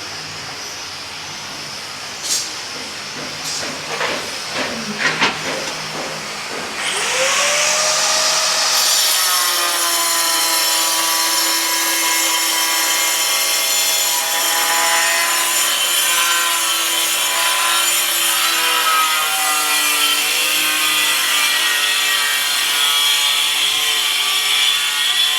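A few sharp knocks, then an electric power tool motor spins up about seven seconds in with a rising whine. It then runs steadily at high speed, its pitch dipping and wavering as it cuts.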